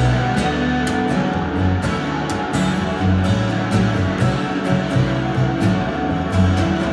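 Live instrumental music: an upright double bass plucked in sustained low notes under an acoustic guitar. Crisp ticks keep a pulse a few times a second.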